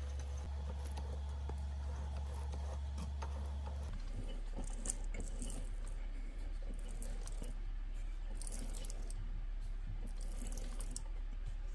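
Light metallic clicks and rattles of a hand tap being turned into a hole on a lathe, over a steady low hum that drops lower about four seconds in.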